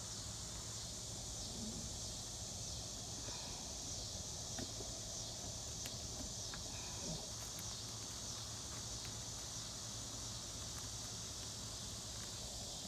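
Steady, high-pitched outdoor insect chorus of crickets, with a few faint clicks mixed in.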